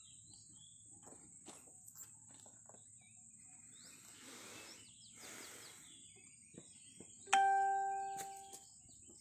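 A phone's notification chime: one sudden clear ding about seven seconds in, fading away over about a second. Before it come faint bird chirps and two soft rustles.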